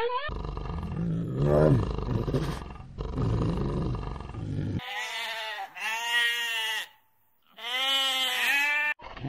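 Low growling animal calls, then two long bleats from a goat herd, the second beginning about a second after the first ends.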